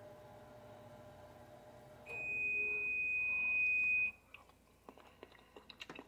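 An electronic beep: one steady, high-pitched tone held for about two seconds, starting about two seconds in, as a faint hum stops. A few light clicks of a metal fork on the plate follow near the end.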